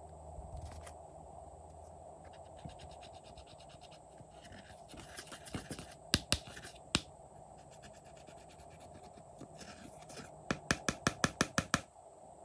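A plastic tool scraping and crumbling pressed eyeshadow powder out of a palette pan, with a fine scratchy rasp. Scattered sharp clicks come in the middle, and near the end a quick run of about eight sharp clicks.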